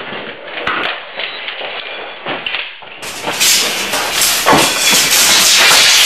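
Scattered knocks and clatter of objects being banged about in a cluttered garage, staged to fake an earthquake. About three seconds in it switches abruptly to a much louder, dense crashing and rattling din.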